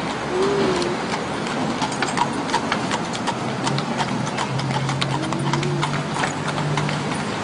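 Shod carriage horse's hooves clip-clopping at a walk on a paved city street, a steady run of sharp strikes. A low steady vehicle hum comes in about halfway through.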